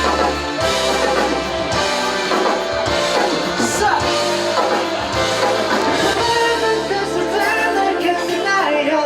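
A band playing a pop-rock song with a singer over guitar, bass and drums, as in a band rehearsal run-through.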